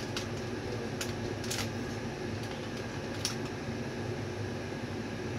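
Steady hum of a kitchen appliance fan running, with a few faint clicks of serving utensils.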